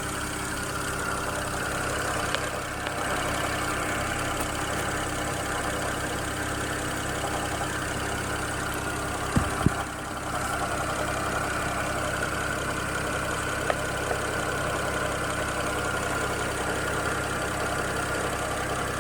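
BMW N54 twin-turbo inline-six running steadily at idle, in an engine that has a rough idle with no fault code. A couple of brief knocks come about halfway through.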